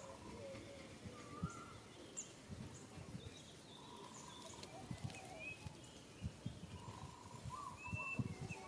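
Faint outdoor ambience with scattered short bird chirps, several of them close together near the end, and a few soft low knocks.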